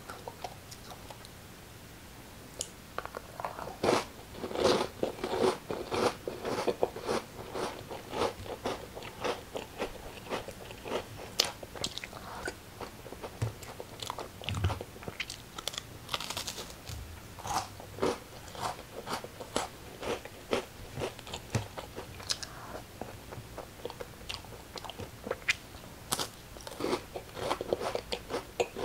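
Close-up eating sounds: a person biting and chewing crunchy food, a dense run of crisp crunches that begins about three seconds in.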